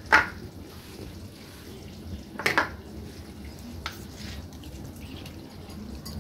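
A plastic measuring spoon scraping and knocking against a steel bowl and a plastic spice tub as spice powders are spooned over raw chicken. Two short scrapes stand out, one at the very start and one about two and a half seconds in, with a few fainter ones around four seconds, over a low steady background.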